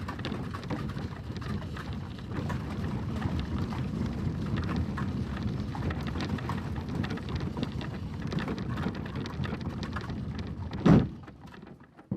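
Horse-drawn carriage rolling, giving a dense, irregular rattling clatter of wheels and fittings. About 11 seconds in there is one heavy thump, the loudest sound, and then the clatter fades out.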